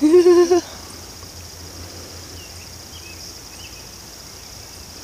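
Crickets chirping in a steady high trill, with a few faint bird chirps in the middle. A short hummed voice sound, the loudest thing, opens it and lasts about half a second.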